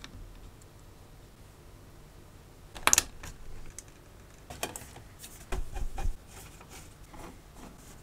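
Small clicks and knocks of hands handling a computer power supply's wiring and casing: one sharp click about three seconds in, then a cluster of clicks with a few low knocks around five to six seconds.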